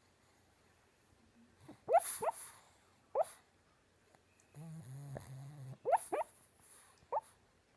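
Sleeping pug snoring: short, rising, squeaky whistles on its breaths, some in pairs, and a low drawn-out snore lasting about a second past the middle.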